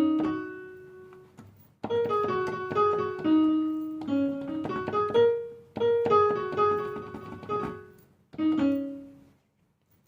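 A piano-sound melody in short phrases with brief gaps between them; two phrases follow much the same pattern. A last short phrase fades out shortly before the end.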